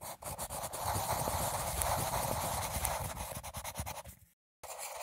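Scratchy, crackling sound effect full of rapid clicks over a low rumble, from an animated logo sting; it cuts out suddenly for a moment near the end and then starts again.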